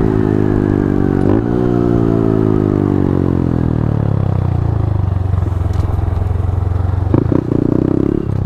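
Honda Grom's small single-cylinder engine heard from the rider's helmet. Its pitch falls steadily as the bike slows over the first few seconds, holds low, then climbs again near the end as the throttle opens.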